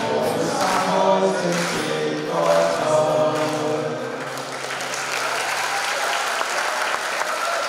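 A student choir singing the last phrase of a song, ending about four to six seconds in, as an audience's applause rises and takes over.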